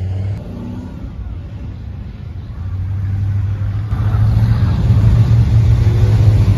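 Engines of cars driving away from a car show, a low steady exhaust note that grows louder from about four seconds in as another car comes past.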